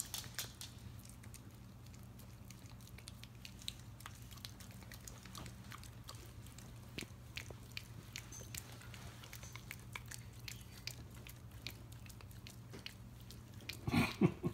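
Italian greyhound licking and chewing a sticky mouthful of peanut butter: quiet, irregular smacking and clicking of tongue and jaws, with a few louder smacks near the end.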